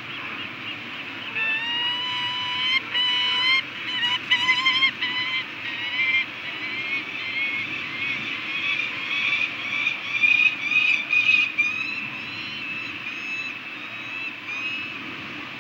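Peregrine falcon calling: a long series of wavering, whining notes starting about a second in, louder in two spells, over a steady background hiss.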